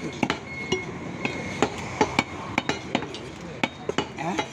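Irregular sharp knocks of cleavers striking beef on wooden chopping blocks, mixed with metallic clinks of blade on metal, about two or three a second.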